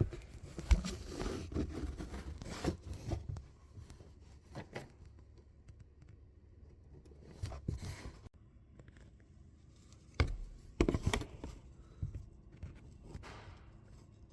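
Hand-work noises from fitting foam tape and a zip tie around the car's fuel pipes: irregular tearing and scraping with a few sharp clicks, coming in several short bursts.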